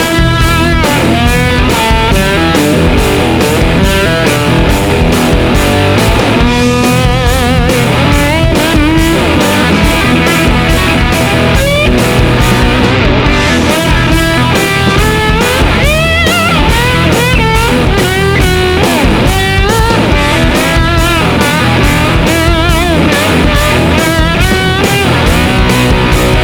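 Rock music led by electric guitar, with a steady driving beat and a wavering lead guitar line.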